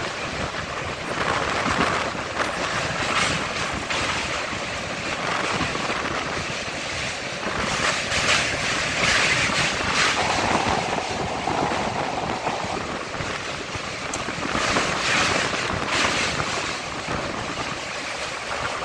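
Express train running across a steel truss bridge, heard from an open carriage door: a steady rush of wheel and rail noise mixed with wind on the microphone, and scattered clacks of the wheels over rail joints.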